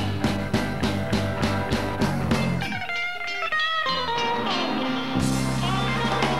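Live rock and roll band with electric guitar, bass and drums. A little under three seconds in the bass and drums drop away under a solo electric guitar lick stepping down in pitch, then the full band comes back in.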